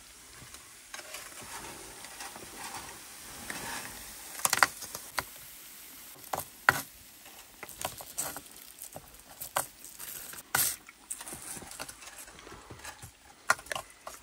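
A spoon stirring food in a pan to coat it in thickened sugar syrup, with irregular clinks and scrapes against the pan. The sharpest knocks come about four and a half, seven and ten and a half seconds in.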